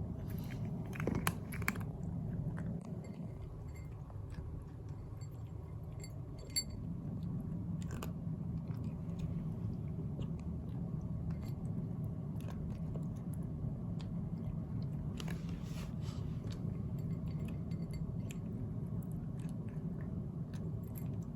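A small pet chewing and nibbling its food: faint, irregular crunching clicks over a steady low hum.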